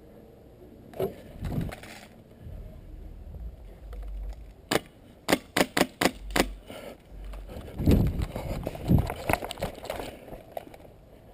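A string of about six sharp cracks in quick succession midway through, typical of an airsoft gun firing. Low thumps and rustle of movement follow near the end.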